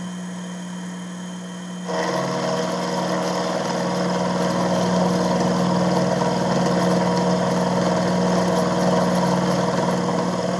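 Shop-built minimill with a TAIG microlathe headstock, its motor running with a steady hum. About two seconds in, the 4-flute 3/8-inch end mill bites into an aluminium block, and a steady cutting noise carries on as the cut is fed across the work.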